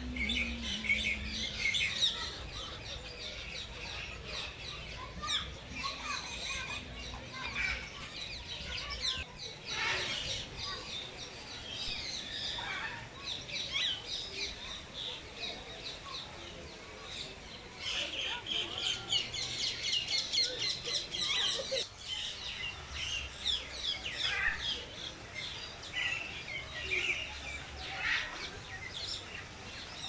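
Many small birds chirping and twittering in quick, high calls, busiest a little past the middle.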